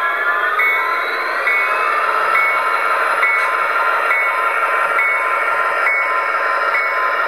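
HO-scale F59PHi model locomotive's DCC sound decoder playing an EMD 710 12-cylinder turbocharged diesel through a small speaker, running steadily as the model creeps at its lowest speed step. The engine's pitch eases down over the first couple of seconds and then holds, and a short high tone repeats a little faster than once a second over it.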